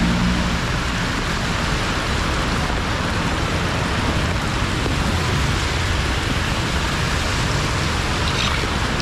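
Steady rush of heavy floodwater, an even unbroken wash of water noise.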